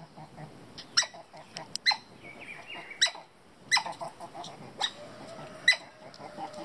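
An otter giving short, sharp, high-pitched squeaks, about one a second, six or so in all.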